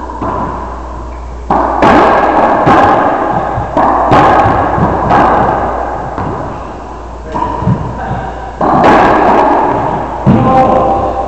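Racquetball rally on an enclosed court: about a dozen sharp cracks of racquet hits and the ball striking the walls, each followed by a long booming echo off the court walls.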